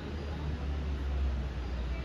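A low, steady rumble that swells for a second or so in the middle, over a faint outdoor hiss.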